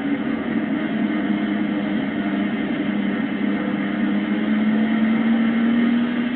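The six-cylinder engine of the MG EX135 record car running flat out at speed: a steady drone that rises slowly in pitch.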